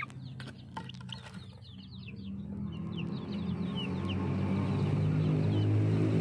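Chicks peeping: many short, high, falling chirps, a few a second. A low steady hum builds up and grows louder through the second half.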